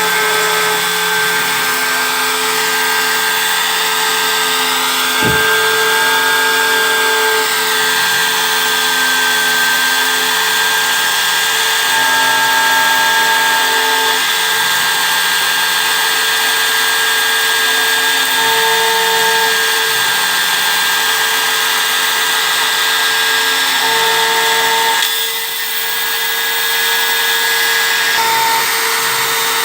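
CNC engraving machine running: the steady high whine and hiss of its cutting head, with lower motor tones that switch on and off every second or two as the head moves, and a brief dip in level near the end.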